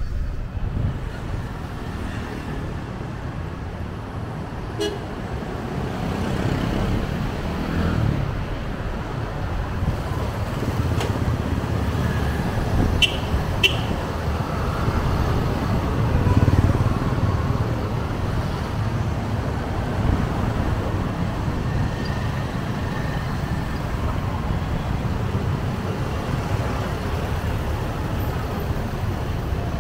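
City street traffic: a steady rumble of passing engines, with two short horn toots in quick succession about halfway through.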